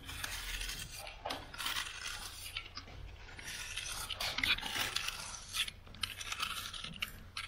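A hand-held blade scraping stripper-softened oil paint off a plaster ceiling cornice, in a run of short, irregular strokes as the paint lifts away in wrinkled sheets.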